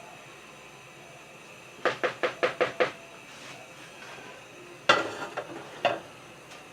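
Kitchenware knocking: a quick run of six taps, then about five seconds in a sharper clatter followed by a few lighter knocks, as of dishes and utensils being handled.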